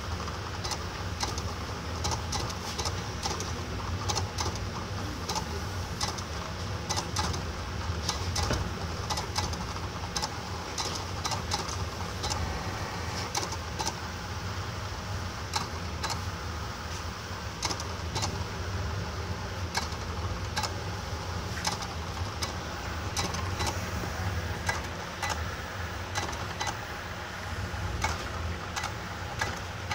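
Desktop cutting plotter converted into a pen plotter, drawing a PCB layout in marker on paper. Its motors run with a steady low hum as the pen carriage and paper rollers shuttle back and forth, with frequent short clicks throughout.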